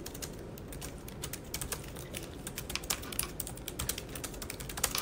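Typing on a computer keyboard: quick, irregular key clicks, with the sharpest keystrokes about three seconds in and near the end.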